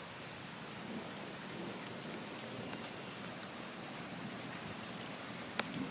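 Floodwater running off a road in a steady rush, with one sharp click near the end.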